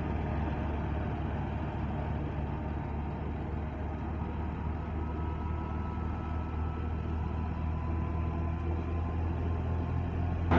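Tractor-driven wheat thresher running steadily: the Fiat 640 tractor's diesel engine under load, with the thresher's drum and blower whirring as it blows out chaff. A steady drone with a faint high whine above it.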